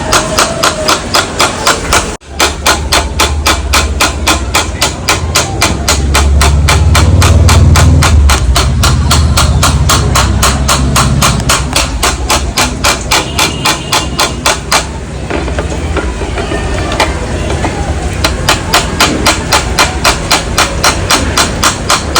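Steady, rapid hammer blows, several a second, beating out a dent in the steel silencer of a Yamaha RX100. A low rumble runs beneath the blows from about two seconds in until about fifteen seconds.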